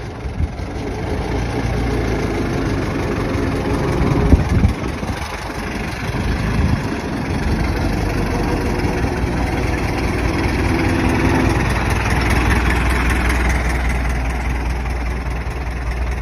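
Old car engine running at idle, with a brief louder, uneven stretch about four seconds in before it settles back to a steady idle.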